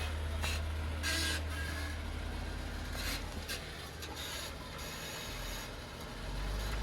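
Jeep Wrangler crawling over rock: a low engine drone that eases off after about two seconds and builds again near the end, with several short scraping, grinding noises of tyres and rock.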